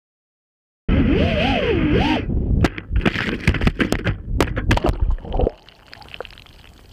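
FPV quad's brushless motors whining with a pitch that swings up and down, then a rapid run of sharp cracks and knocks as the quad crashes and tumbles into rocky surf. About five and a half seconds in, the sound turns quieter and muffled, with faint ticks, as the onboard camera sinks under water.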